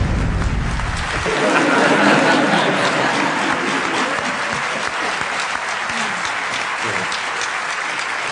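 A large audience applauding, a long round of dense clapping.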